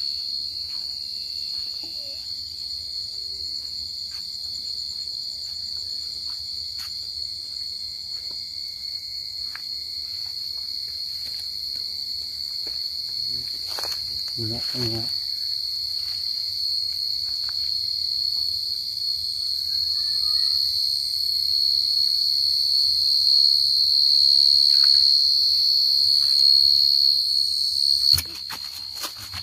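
Field crickets calling: a steady, high-pitched trill that grows louder and cuts off abruptly near the end.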